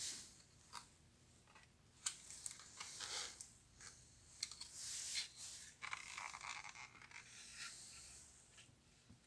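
Faint, scattered clicks and scratchy scraping of hands working on small parts: handling and taking apart a microwave's control board.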